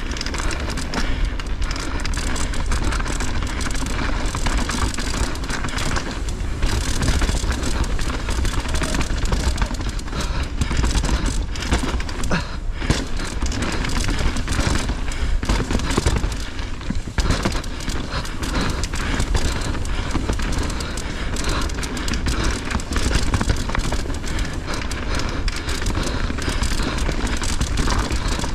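Wind rushing over the microphone with a deep rumble, over the tyres of a hardtail mountain bike rolling down a rough dirt trail and the bike rattling over bumps.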